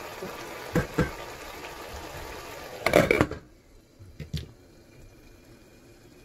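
Tomato sauce bubbling and steaming in a stainless steel saucepan, with two knocks of a wooden spoon against the pot about a second in. About three seconds in, a glass lid is set on with a clatter, a few small clicks follow, and the bubbling becomes much quieter under the lid.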